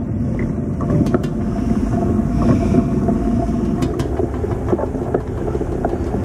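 Steady rumble of wind buffeting the microphone and tyres rolling on a concrete road from a bicycle being ridden, with a few scattered light clicks and rattles.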